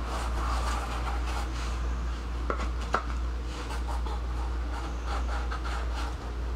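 Soft rubbing and scratching of EVA foam pieces being pressed together and glued with super glue, with two light clicks about halfway through, over a steady low hum.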